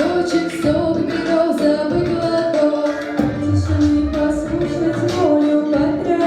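A vocal ensemble of mostly female voices singing together, a song performance.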